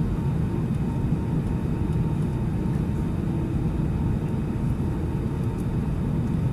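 Jet airliner engines heard from inside the passenger cabin: a steady rumble with a faint steady whine, holding level while the aircraft moves on the ground.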